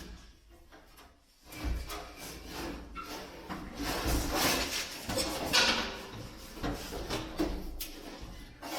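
Irregular metal clunks, knocks and scraping, with heavy low thumps, as a large part is shifted and worked free of a stripped-down truck.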